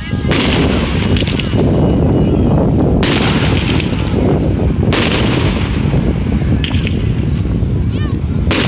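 Fireworks going off: several sharp bangs, a cluster near the start and others about 3, 5, 7 and 8.5 seconds in, over a continuous rumble and crackle.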